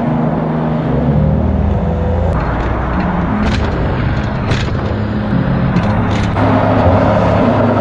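Car engine running at speed with tyre and wind noise, heard from on board the car. The sound changes abruptly about a third of the way in and again near the end.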